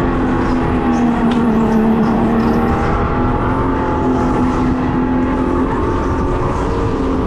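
Electric go-kart's synthetic engine sound, played from a speaker behind the seat, running steadily, its pitch following the throttle. The pitch dips slightly about two seconds in, then picks up again, over a constant rushing noise.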